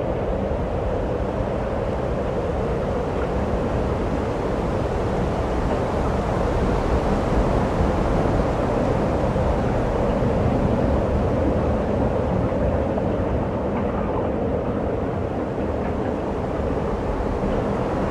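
Steady outdoor background rumble: an even, low noise with no distinct events, the kind that wind on the microphone and a distant shore make.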